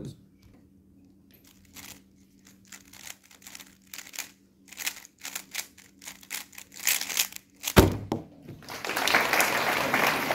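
Fast clicking and clacking of a 3x3 speedcube's layers being turned during a solve, then a sharp slap about three-quarters through as the hands come down on the stackmat timer to stop it. Applause follows near the end.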